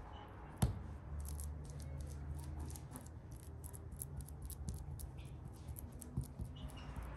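Knife blade spreading and smoothing the soft fruit filling on a pie, a quick run of light scraping ticks, about five a second, with one sharper click a little over half a second in.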